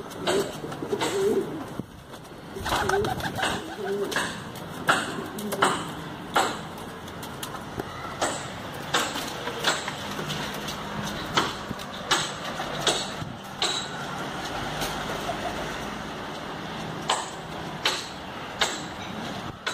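Domestic pigeon cooing in low wavering calls during the first few seconds. Short sharp clicks or taps recur through the whole stretch, several times a second at the busiest.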